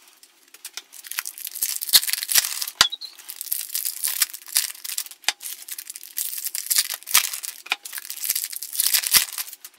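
Foil wrappers of Topps baseball card packs being torn open and crinkled by hand: a rapid run of crackling and ripping, broken by short pauses.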